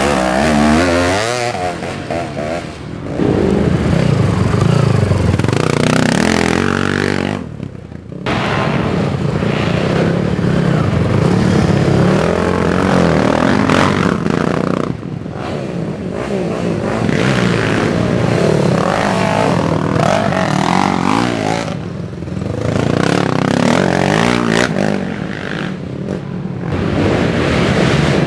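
Racing ATV engines revving hard as quads climb past on a dirt trail, one after another. The engine pitch rises and falls with each pass, and the sound drops off briefly several times between riders.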